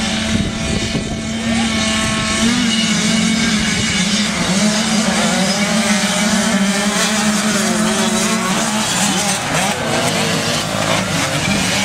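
A pack of 85cc two-stroke motocross bikes revving on the start line, then accelerating away together and racing off. Many engines can be heard at once, their pitches overlapping and shifting.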